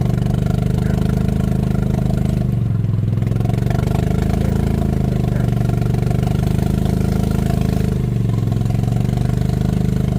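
Golf cart engine running steadily under load as the cart tries to climb a slick hill, with its speed dropping and picking up again twice.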